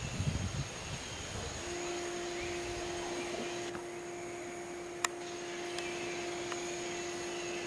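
Mantled howler monkeys roaring in low, rough bursts for about the first second and a half. After that a steady low hum sets in, with a thin high tone throughout and a single sharp click about five seconds in.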